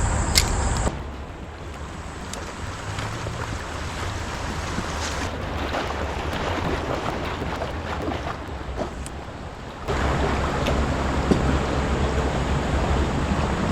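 River water rushing and splashing around a kayak, with wind buffeting the microphone. A heavy low rumble drops away about a second in and returns abruptly near the ten-second mark.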